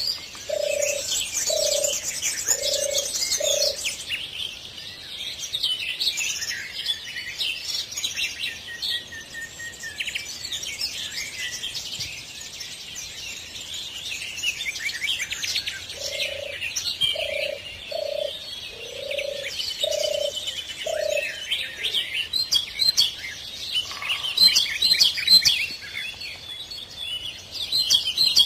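Many small birds chirping and singing together. A dove coos a run of six or seven low, evenly spaced notes at the start and again about halfway through.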